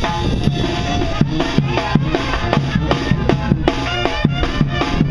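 Live Mexican banda music: drums keeping a steady beat of about three strokes a second, with tuba and horns playing along.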